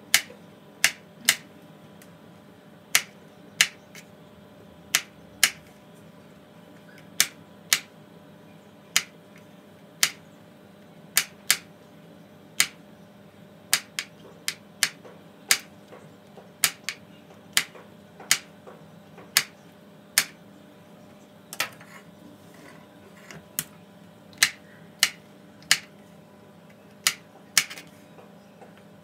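Chef's knife chopping button mushrooms on a plastic cutting board: sharp, irregular knocks of the blade striking the board, one or two a second.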